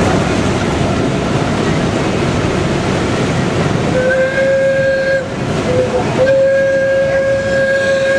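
A single-note whistle sounds three times, starting about four seconds in: a long blast, a short one, then a longer one. Under it runs the steady rush of wind and water on the microphone.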